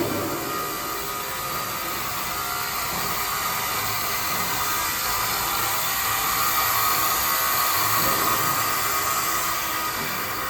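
Rack beam roll forming machine running: a steady mechanical hiss with a whine, a little louder in the middle.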